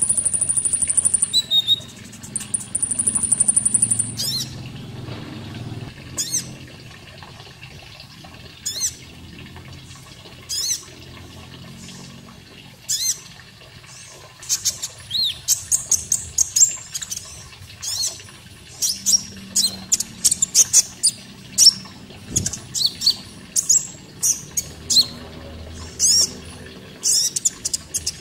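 Konin songbird singing: two high, steady trills in the first few seconds, then a run of short, sharp chirps that sweep downward, coming thicker and faster in the second half, over a faint background of running water.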